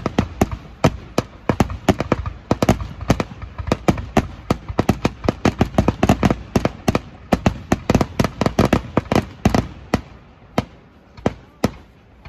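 Fireworks display: aerial shells bursting in a rapid barrage of bangs, several a second, thinning to occasional bangs after about ten seconds.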